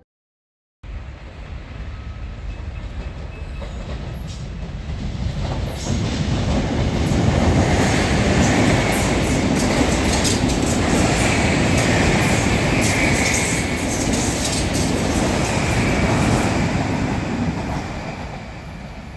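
Loud, continuous rumbling noise with no clear pitch, building over the first several seconds and easing off near the end.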